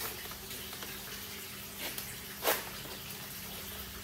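Handling of a large plastic bag of water holding fish: a faint wash of water sound over a steady low hum, with one brief sharp rustle about two and a half seconds in.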